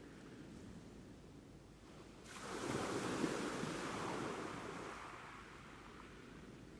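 Ocean waves washing on a shore: a low background wash, then one wave surges in a little over two seconds in and fades away over the next few seconds.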